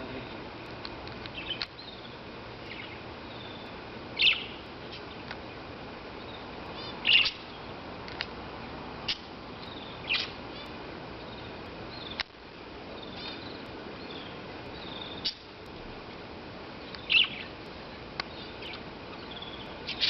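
Canaries and lovebirds in an aviary giving short, sharp chirps every few seconds, with a few louder calls standing out, over a steady background hiss.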